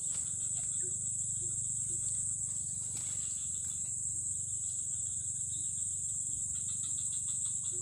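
A steady, continuous high-pitched chorus of insects trilling, with a low steady rumble underneath.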